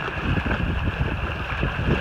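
Water splashing and sloshing as a large dog wades through shallow sea water, towing a kayak on a rope, with wind buffeting the microphone as a steady low rumble.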